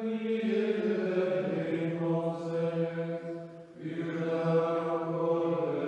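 Slow sung chant in a low male register, each note held for a second or more. The pitch steps down about a second and a half in, with a brief break in the singing just before the fourth second.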